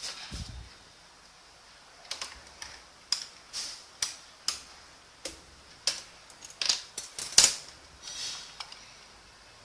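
Keys being pressed one at a time on an Obins Anne Pro 60% mechanical keyboard with Gateron switches: about a dozen separate clicks at uneven spacing, with a low bump at the start.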